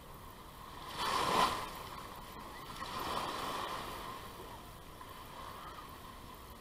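Small waves washing up the sand at the water's edge: one rush of water about a second in, and a softer, longer one about three seconds in.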